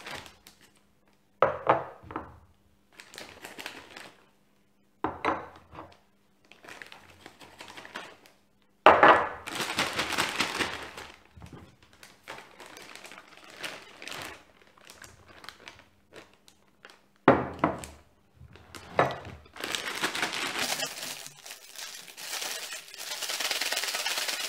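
Plastic zip-top bag crinkling and rustling as flour and starch are poured in and chicken pieces dropped in, with a few sudden knocks of glass bowls and bag. Near the end comes a steady rustle as the closed bag is shaken to coat the chicken in the flour and starch mix.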